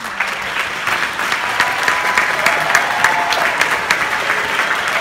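Audience applauding: dense clapping that builds over the first second, then holds steady.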